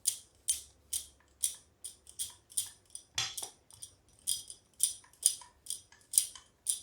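Wooden rolling pin and rolling board clicking and knocking as a stuffed kochuri dough ball is rolled out, about two to three clicks a second, with a short pause a little past halfway.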